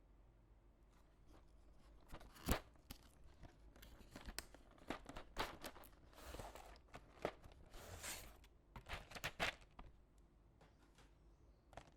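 Typing on a mechanical keyboard with PBT doubleshot keycaps: irregular keystrokes, faint, starting about a second in and stopping near the end, with one louder stroke early on.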